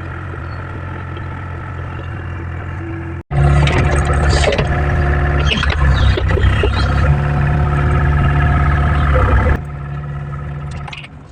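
Diesel engine of a tracked hydraulic machine running steadily. After a sudden break about three seconds in it is louder, with clatter over the running, then drops back to the steadier level and fades near the end.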